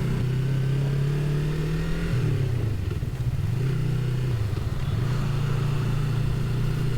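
300 cc motorcycle engine idling while stopped in traffic, its speed wavering down and up a couple of times in the middle before settling back to a steady idle.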